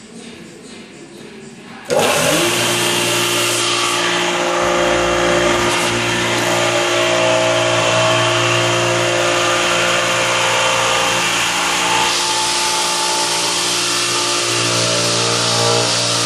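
Clarke American Sanders OBS-18 orbital floor sander switched on about two seconds in, its motor coming up quickly to a loud, steady hum with a hiss of sandpaper on the hardwood floor, then running on steadily as it sands off the old finish.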